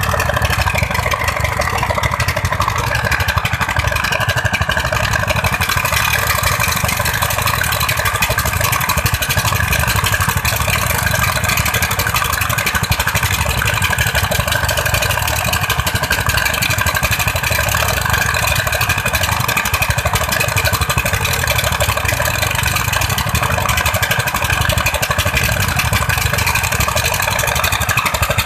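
Dompeng-type diesel engine on a sand-mining raft running steadily under load, driving the suction pump that draws sand up from the riverbed.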